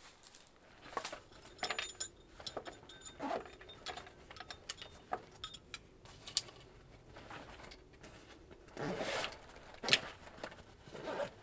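Small metal objects being handled, with light metallic clinks and rattles and a string of small knocks. A louder rustle comes about nine seconds in.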